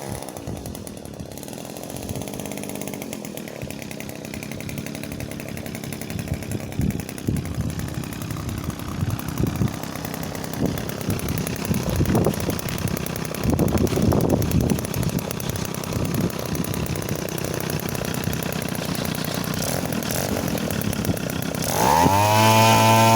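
A radio-controlled model airplane's motor and propeller running on the ground during a radio test, the throttle varying. It gets louder and holds a steady pitch near the end.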